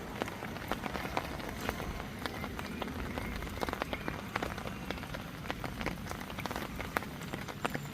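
Rain pattering on a surface: a steady stream of small, irregular drop taps.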